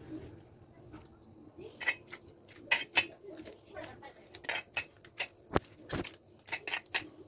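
Hands kneading soft wheat-flour dough in a stainless steel bowl: irregular sharp clinks and knocks, glass bangles on the wrist clinking and knuckles striking the bowl, mostly from about two seconds in.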